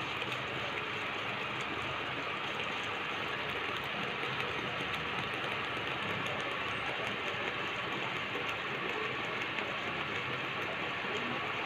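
Thick moong dal with gongura leaves simmering in a pan on the stove: a steady hiss with faint scattered pops of bubbles.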